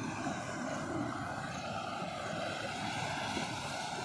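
Muddy floodwater rushing steadily through a breach in an earthen canal bank and pouring out through the gap.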